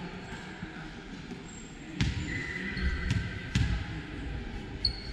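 A basketball bouncing on the court: a few hard bounces starting about two seconds in, with short high squeaks between them.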